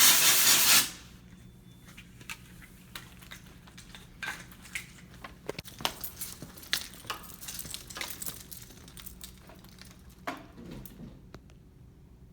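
A fire alarm horn gives one loud blast just under a second long at the very start, then cuts off. Scattered light clicks and knocks follow for several seconds.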